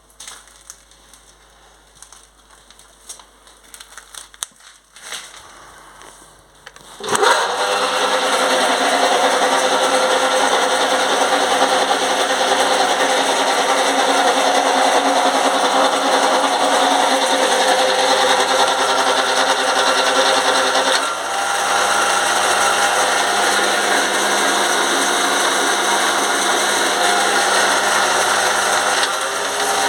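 Homemade lathe's electric motor switched on about seven seconds in, after a few light clicks and knocks, then running steadily with a whine. Its note dips briefly about two-thirds of the way through and shifts again near the end.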